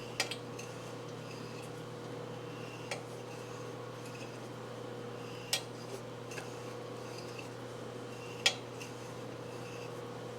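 Sharp metallic clicks, four of them a few seconds apart, as a thread tap is turned by hand into a stud hole in a Suzuki TS400 cylinder, cutting threads for a thread-repair insert. A steady low hum runs underneath.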